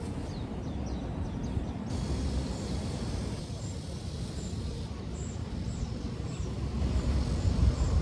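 Outdoor ambience: a steady low rumble with a small bird chirping, short high notes repeated about twice a second.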